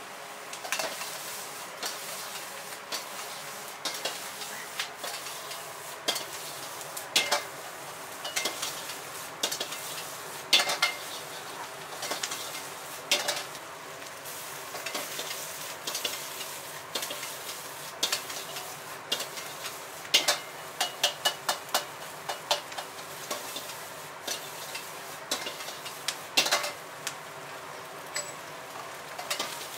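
Food sizzling in a wok over a gas burner while a metal wok ladle stirs, scrapes and clanks against the wok in irregular sharp knocks, with a quick run of clanks about two-thirds of the way through.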